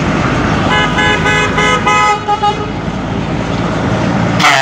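Truck horn honked in a quick run of about five short multi-tone toots, roughly three a second, over the low rumble of passing truck engines. A brief loud hiss comes near the end.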